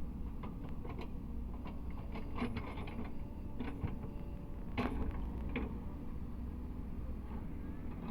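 Cat 307E2 mini excavator's diesel engine running steadily, with scattered sharp knocks and clanks, the loudest about five seconds in.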